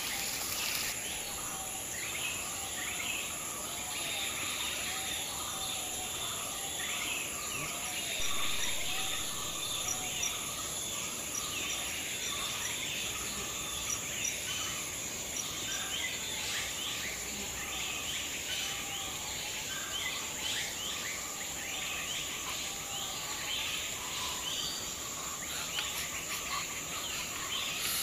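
Forest ambience: many birds calling in short, falling chirps and whistles over a steady, high-pitched insect drone.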